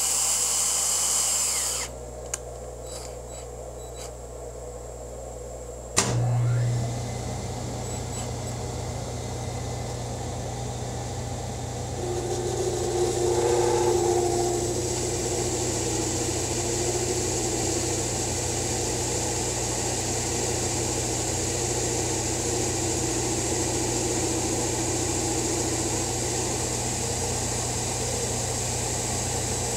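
A louder, high-pitched whirring for about two seconds. About six seconds in, a click as the Hardinge HLV-BK toolroom lathe starts, then its spindle runs with a steady low hum. From about twelve seconds a steady whine is added as the final cut is fed along the spindle taper.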